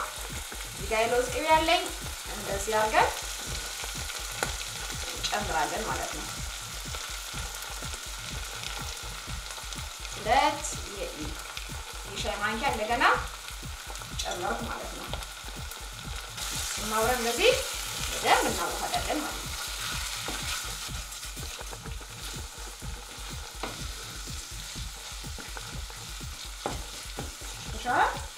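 Eggplant sauce sizzling in a nonstick frying pan as a wooden spoon stirs it. Short rising squeaks come every few seconds.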